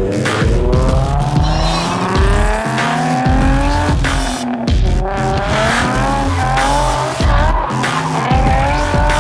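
Nissan 350Z drift car's engine revving, its pitch climbing and dropping back several times, with tyres squealing as it slides. All of it sits under loud dubstep music with a heavy bass beat.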